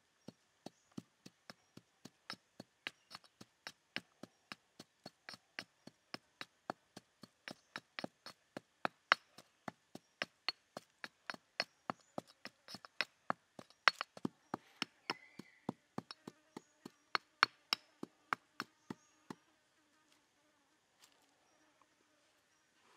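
Pestle pounding herbs and coarse seasoning in a stone mortar: steady knocks about three a second that stop a few seconds before the end.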